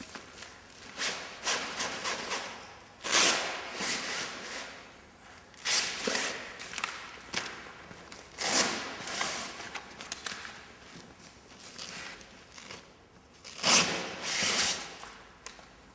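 Handling noise from a flexwing microlight wing's fabric bag and tie straps: several separate rasping, rustling bursts as the straps are pulled open and the sail fabric is moved, with steps on the floor in between.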